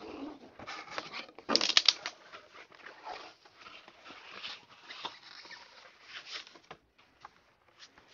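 Cardboard boxes rubbing and scraping as a snug inner product box is worked out of its shipping carton, with the loudest scrape about one and a half seconds in, then lighter rustling and handling of cardboard and packing.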